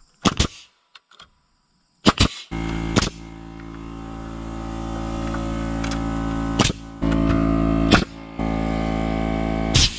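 Porter-Cable pneumatic framing nailer firing nails to toenail wooden roof rafters, with sharp shots at irregular intervals, about seven in all. About two and a half seconds in, the air compressor feeding it starts and runs steadily under the shots.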